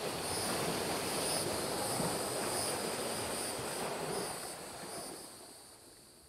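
Steady rushing ambient noise with a faint hiss that pulses regularly, fading out over the last two seconds.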